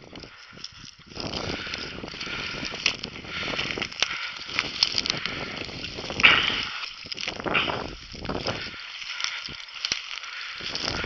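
Rustling and crunching of dry vegetation, with scattered sharp clicks and a louder crackle about six seconds in.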